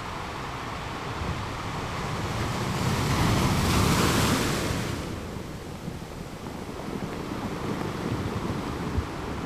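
Sea water washing onto a rocky shore: one wave swells to its loudest about four seconds in and then ebbs away, leaving a lower steady wash with wind.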